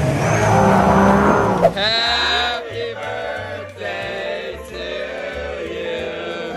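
A 300-horsepower jet boat running at speed, its engine and water spray loud under a rider's laughter, cut off abruptly about two seconds in by music with held, gliding notes.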